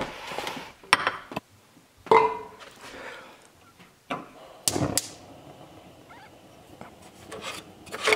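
A few separate knocks and clatters of cookware and utensils being handled at a gas stove, one about two seconds in with a short metallic ring.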